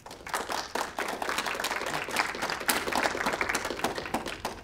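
Audience applauding: a dense patter of many hands clapping, which stops near the end.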